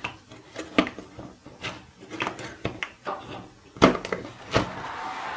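Irregular clicks and knocks of a power plug being pushed into a power strip and things being handled, with two louder knocks about four seconds in.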